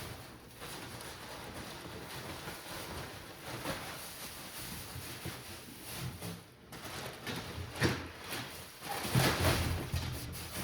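Wood shavings rustling and scraping as they are poured and spread into a brooder, with heavier rushes from about eight seconds in.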